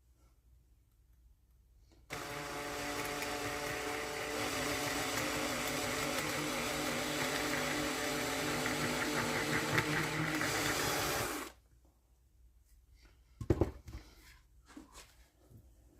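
Electric power tool cutting through wood, starting up about two seconds in, running steadily for about nine seconds and then switched off abruptly; a couple of short knocks follow near the end.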